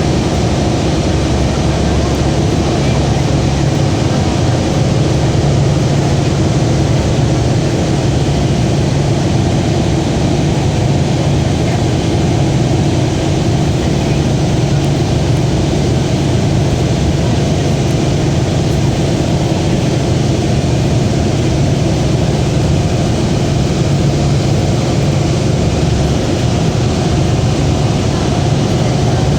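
Hovercraft running steadily: its engines and propellers make a loud, even drone with a low hum.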